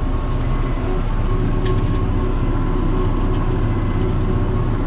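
John Deere 7600 tractor's six-cylinder diesel running steadily under load, heard from inside the cab, while it drives a batwing rotary mower cutting tall grass and brush. A faint thin whine sits over the low engine drone.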